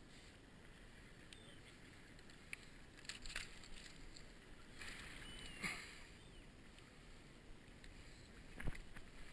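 Shallow seawater lapping quietly over stones and seaweed, with faint clicks and rustles from a landing net and hook being handled, and a sharper knock near the end.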